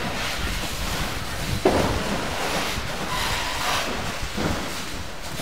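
Large building fire burning with a steady low rumble, with a sharp crack a little under two seconds in and wind buffeting the microphone.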